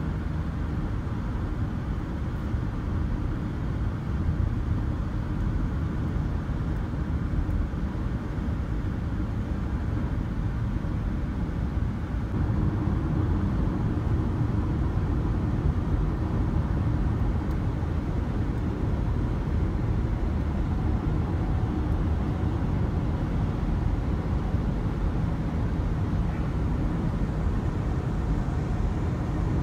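Steady rumble of a moving car, with road and engine noise.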